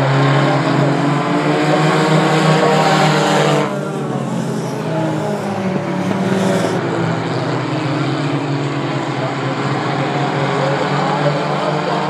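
A pack of compact stock race cars running at speed on a paved short oval, several engines sounding together with pitches wavering up and down. The sound drops suddenly in loudness and brightness about four seconds in, then carries on steadily.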